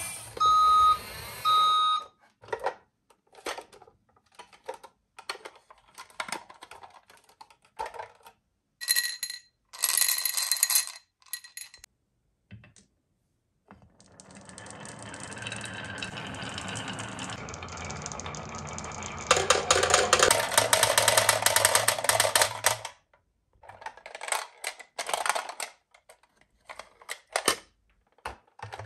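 Toy trucks' electronic beeps, then wooden and glass marbles clicking on the wooden marble run. Midway a crowd of marbles rolls along the wavy wooden track as a steady rumble that grows louder and then stops suddenly, followed by more scattered clicks.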